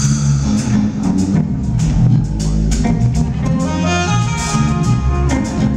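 Live smooth-jazz band playing, with electric bass and a drum kit keeping a steady groove. A saxophone holds one long note from about three seconds in, ending shortly before the close.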